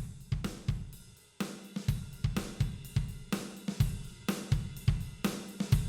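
Drum-kit beat of kick drum, snare and cymbals playing a steady rhythm, breaking off briefly about a second in and then starting again.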